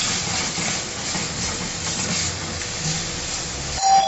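Minced meat frying in a karahi with a steady sizzle, a spatula stirring through it. Near the end, a sudden knock and then a steady high tone begins.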